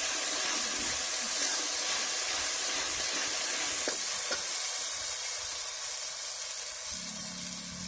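Spice paste sizzling as it fries in hot oil in a steel kadhai, stirred with a steel ladle. The steady sizzle eases a little near the end as the stirring stops.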